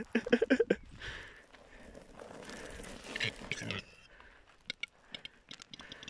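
Footsteps crunching on gravel as a person walks away, with a cluster of short, louder crunches or knocks in the first second and scattered sharp clicks near the end.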